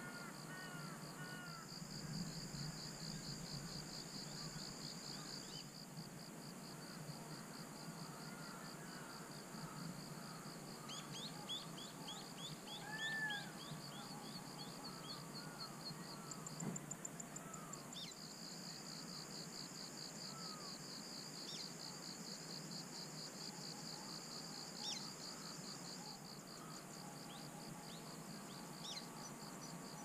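Faint dawn birdsong: scattered chirps and short calls, with a run of quick falling notes around eleven to thirteen seconds in. Beneath them runs a steady, rapidly pulsing high-pitched insect trill that breaks off briefly around seventeen seconds.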